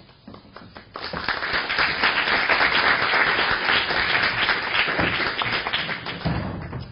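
Audience applauding, a dense patter of many hands clapping that starts about a second in and dies away near the end.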